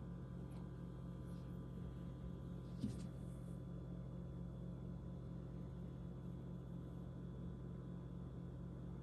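Quiet, steady low electrical hum of room tone, with a single brief click about three seconds in.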